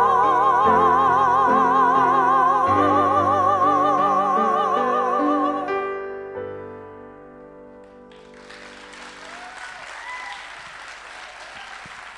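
A man and a woman sing the closing notes of an operatic duet with piano accompaniment. They hold the final note with vibrato and cut off about six seconds in, and the piano chords die away. About eight seconds in, an audience starts applauding.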